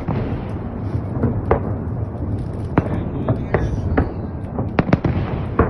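Aerial fireworks of a salute bursting: an irregular series of sharp bangs and crackles, coming thicker in the second half, over a steady low rumble.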